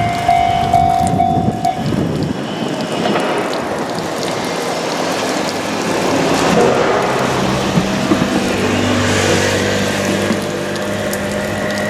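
Japanese level-crossing warning bell ringing in steady pulses and stopping about two seconds in, over the clatter of a train's wheels on the rails. After that a train's motors hum steadily at a low pitch through the rest.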